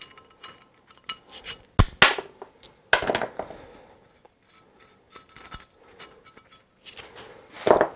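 Metal clinks and knocks as steel bolts are taken out of a machine part's mounting face and set down on the workbench: several separate hits spread out, some ringing briefly, the loudest near the end.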